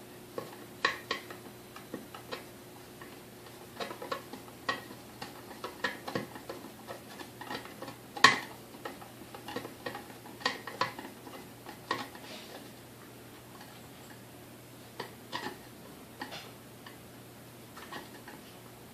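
Hand tool picking at the covered screw heads in a KitchenAid 3C stand mixer's metal housing: irregular light clicks and taps, the sharpest about eight seconds in, thinning out in the later part.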